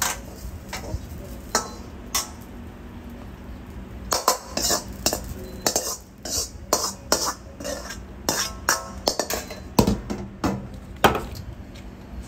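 Metal cooking utensils clanking and scraping against a wok and pans: an irregular run of sharp clinks and knocks, some ringing briefly, over a steady low hum.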